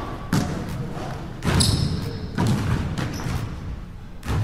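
Basketball dribbled on a hardwood gym floor: a handful of separate bounces, roughly a second apart.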